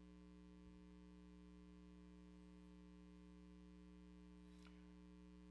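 Near silence with a steady electrical mains hum, and one faint short noise near the end.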